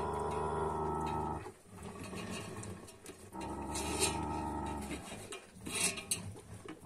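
Dog growling low over the food bucket in two long growls, the first ending about a second and a half in, the second running from about three to five seconds in: a warning growl guarding food from the other dogs. A few short clicks fall between and after the growls.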